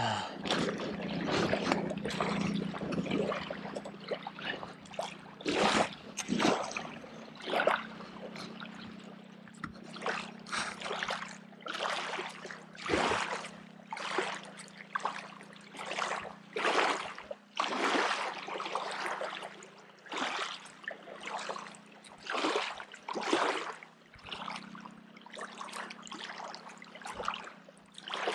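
Small wind-driven waves lapping and splashing against the shoreline in irregular bursts, about one every second, over a steady low hum.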